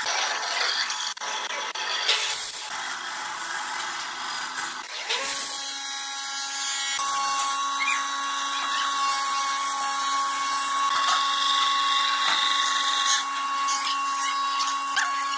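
Bandsaw cutting a curve through a thick wooden board: the blade hisses through the wood over the saw's running. A steadier humming tone sets in about five seconds in and holds.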